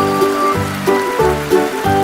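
Background music for a cartoon: pitched melody notes changing every few tenths of a second over a bass line. A patter like falling water runs under it.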